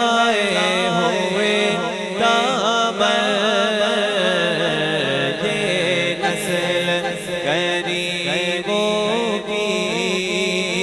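Devotional manqabat singing with heavy echo: a voice carries a long, wavering melodic line over a steady low drone, with no instruments to be seen.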